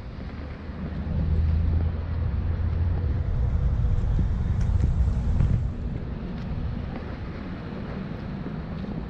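Wind buffeting the microphone: an uneven low rumble that gusts louder about a second in and eases after about six seconds.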